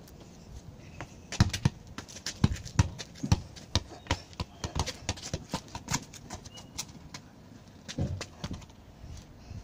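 A football being worked between the feet on concrete: a fast, uneven run of taps and knocks from ball touches and trainers on the slab, starting about a second in and thinning out, with a few more about eight seconds in.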